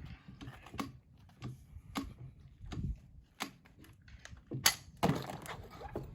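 Irregular sharp clicks and cracks, about a dozen, from a shotgun and rimfire rifle being loaded, cycled and fired during a course of fire. The loudest crack comes about two-thirds of the way through, with another just after it.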